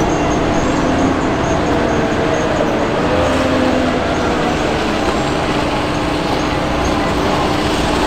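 Hidromek HMK 640 wheel loader's diesel engine running as the machine drives forward with a full bucket. A steady whine sits under engine tones that rise and fall with the throttle.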